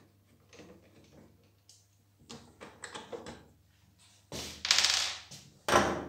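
Hand work on a plastic pressure-washer housing: faint small clicks as a Torx screw is turned out, then a louder scraping clatter about four seconds in and a sharp knock near the end as tools and parts are handled on the workbench.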